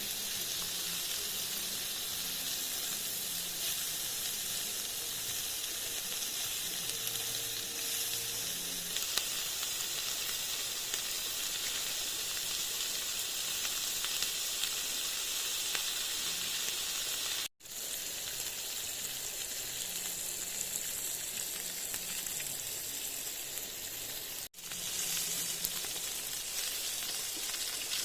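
Food sizzling steadily as it fries in a pan, a dense crackling hiss. It drops out for an instant twice in the second half.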